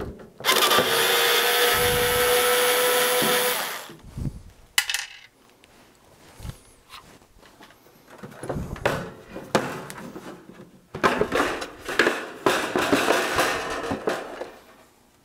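Handheld power screwdriver running once for about three seconds, backing a screw out of a plastic antenna housing. Then scattered knocks, clicks and scraping of hard plastic as the housing is handled and its back cover lifted off.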